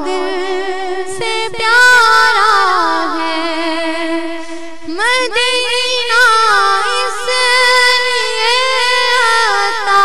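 A single high voice singing an Urdu naat unaccompanied, drawing out long ornamented notes that slide between pitches. The voice breaks off briefly about a second in and again about five seconds in, each time starting a new drawn-out phrase.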